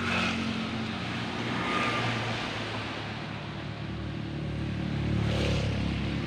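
Motorbike engine idling with a steady low hum, amid road traffic; another vehicle grows louder and passes about four to five seconds in.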